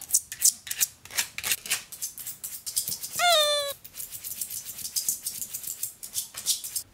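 A Pomeranian's claws scratching at a wall in quick runs of short, scratchy strokes, with one short high-pitched whine about three seconds in.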